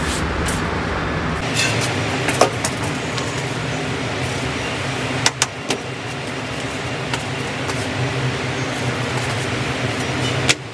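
Steady outdoor city traffic noise, with a few sharp knocks about two and five seconds in.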